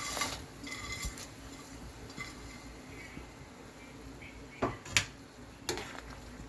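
Cooking utensil clinking and knocking against a pot as noodles are added to the soup, with three sharp clinks in the second half over a steady low background hum.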